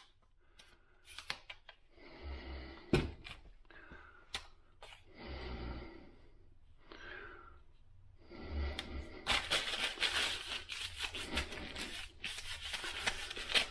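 Wax paper rubbed back and forth along a trekking pole's shaft to clean and wax it, a dense crinkly rubbing that starts about nine seconds in. Before that come short, separate scrapes of the pole sections being handled.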